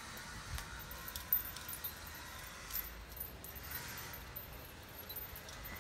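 Light metallic jingling with a few sharp clinks, the loudest about a second in, over a soft rustle.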